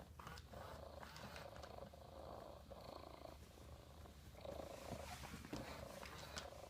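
Hasbro Joy For All robotic cat purring from its built-in speaker: a faint, soft purr that swells and fades every second or two in a repeating loop.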